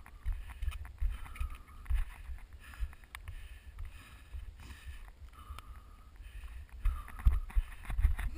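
A runner's footfalls and heavy breathing close to a head-mounted camera, over wind rumble on the microphone, as he steps along the beams of a raised obstacle frame. Near the end the footfalls turn into heavier, regular thumps as he runs on grass.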